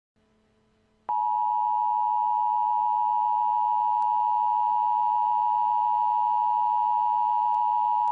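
Emergency Alert System attention signal: a harsh, steady two-tone beep (853 Hz and 960 Hz played together) that starts about a second in and holds at an even level, announcing an emergency alert.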